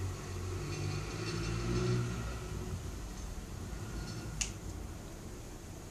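Quiet room background with a steady low hum, and one sharp click about four and a half seconds in.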